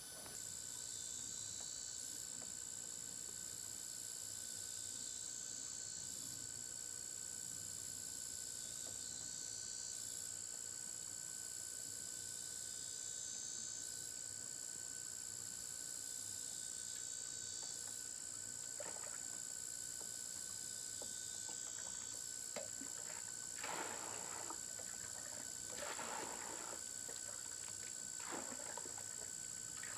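Insects calling in one steady, unbroken high-pitched drone, with a few short noises in the second half.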